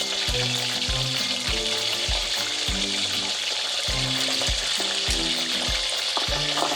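Firm tofu squares frying in hot oil with a steady sizzle, over background music with a regular low beat.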